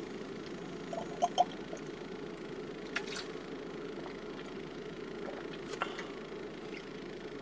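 Someone drinking a small, thick supplement drink, with two quick gulps about a second in and a couple of faint clicks later, over a steady low hum.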